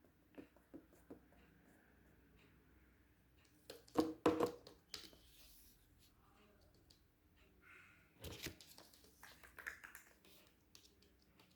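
Scattered light taps and clicks, with two short clusters of louder knocks, one about four seconds in and one about eight seconds in.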